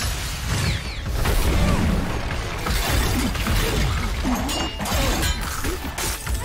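Animated-battle sound effects: shattering and crashing impacts, clashing blades and whooshing magic blasts, all dense and loud, layered over a dramatic score.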